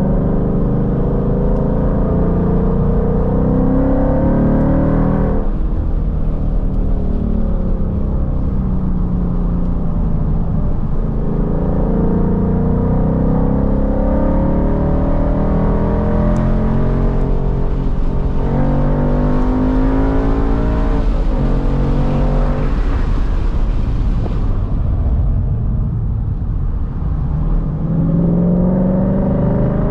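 Ford Mustang's engine under hard acceleration, heard from inside the cabin: its pitch climbs through each gear and drops sharply at each shift or lift, several times over.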